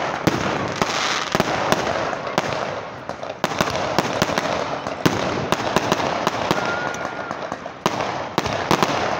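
Fireworks launching and bursting overhead: a rapid, irregular string of sharp bangs and crackles over a continuous hiss.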